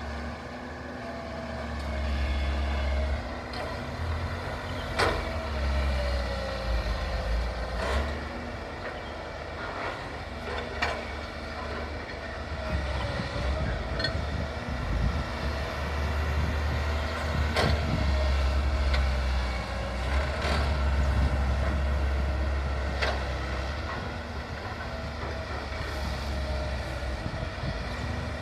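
Heavy machinery engines of an excavator and dump truck running steadily as a stuck dump truck is recovered, with a sharp knock every few seconds.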